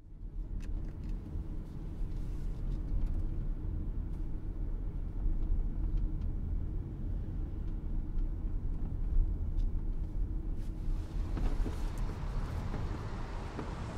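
Car driving along a road: a steady low rumble of engine and road noise with a few faint clicks. About eleven seconds in, a broader hiss joins and stays.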